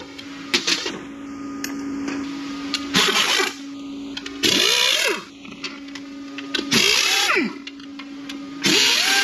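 A steady motor hum, broken by four short, loud hissing blasts a second or two apart.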